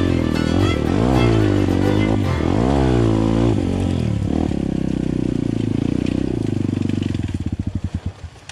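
Off-road motorcycle engine revving up and down a few times, then running at a steady idle that breaks into an uneven, fading beat near the end.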